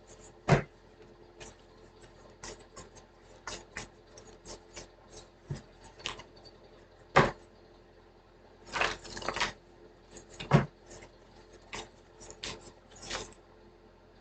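Cards being handled on a table: irregular sharp taps and flicks as cards are drawn and laid down, with a short burst of rustling shuffling about nine seconds in.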